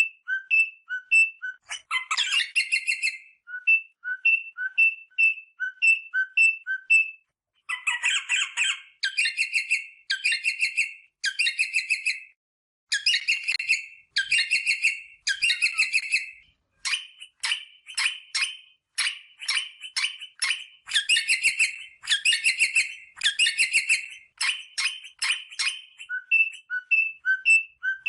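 Rosella parrot song: a clear two-note whistle repeated several times, alternating a higher and a lower pip, then runs of fast chattering bursts about a second long, one after another with short gaps. The two-note whistling comes back near the end.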